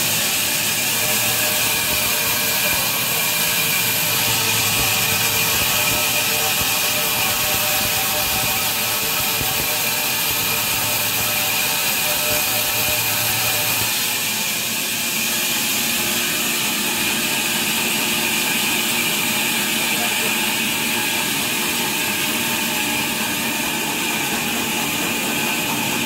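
Sawmill band saw running steadily and cutting through a squared hardwood timber, a constant high hiss over a steady machine hum.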